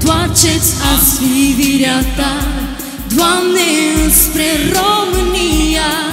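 Christian worship song performed live: a melody with vibrato over a pulsing bass line.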